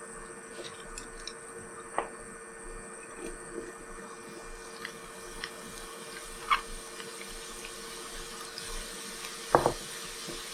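Carrot sticks frying in oil in a pan, a faint steady sizzle, with a few light clicks of a utensil against the pan.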